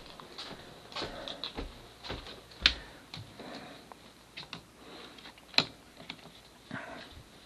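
Footsteps and small clicks and knocks on a wooden floor as someone walks through rooms, with two sharper knocks nearly three seconds apart.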